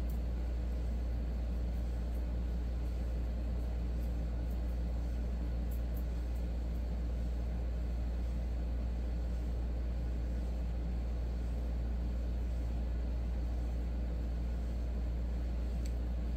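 Steady low background rumble with a faint even hiss, unchanging throughout, and a few faint ticks.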